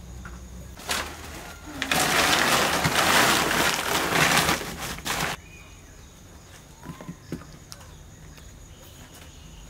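Woven plastic cement sack rustling as a hand opens it and rummages inside: a short rustle about a second in, then a loud, continuous rustle for about three seconds, followed by a few faint ticks.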